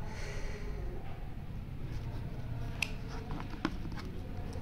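Light handling of the cardboard box and its paper document sleeve, a low rustle with a few faint clicks and taps in the second half.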